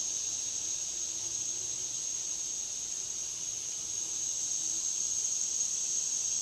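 Steady, unbroken high-pitched drone of an insect chorus in the trees. Under it is a faint, lower, wavering buzz of bees around a birdhouse nest.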